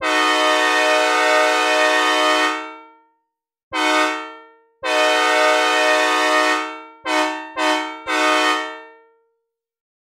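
Synthesized recreation of a Nathan C5A five-chime train air horn, sounded at a steady pitch with no Doppler shift and no added reverb: a long blast, a short one, a second long blast, then three quick short blasts.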